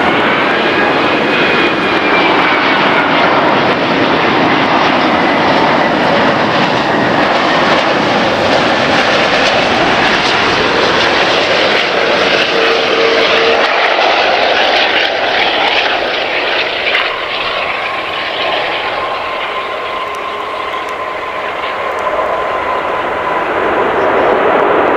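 Jet noise from a British Airways Airbus A380's four Rolls-Royce Trent 900 turbofans as the airliner passes low on landing approach, with a whistling fan whine that glides in pitch. The noise eases somewhat in the second half and swells again near the end as the aircraft rolls out on the runway.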